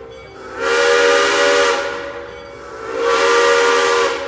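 Steam locomotive whistle sounding two long blasts, each about a second and a half, over a loud hiss of escaping steam.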